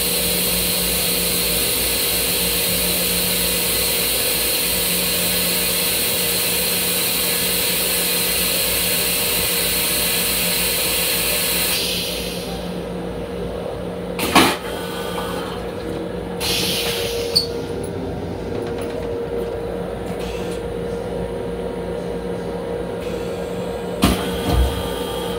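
Steady running hum of an M7 electric railcar heard inside its small restroom, under a loud hiss that cuts off suddenly about halfway through. A few knocks follow, and near the end the plastic toilet seat clunks as it is moved.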